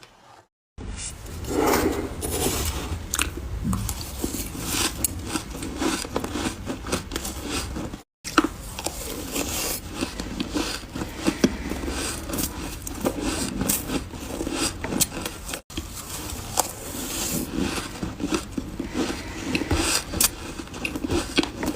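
Ice being bitten and chewed close to the microphone: a dense, irregular run of crunches, broken by short silent gaps where one clip cuts to the next, about a second in and twice more.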